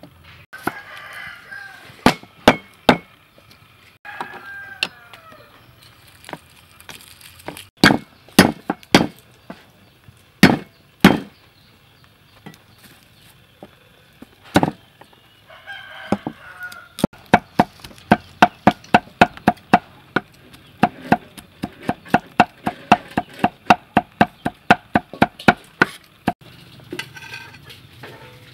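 Cleaver chopping on a wooden chopping block: a few single heavy chops spaced apart, then fast even mincing at about three to four chops a second for several seconds near the end.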